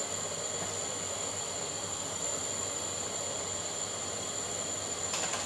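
Portable gas burner on an LPG cylinder, its flame hissing steadily under a pot, with a thin steady high tone above it and a faint click near the end.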